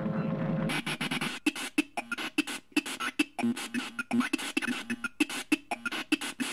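A steady humming drone cuts off under a second in. It gives way to a run of quick, uneven clicks and short pitched sounds in a rough beat.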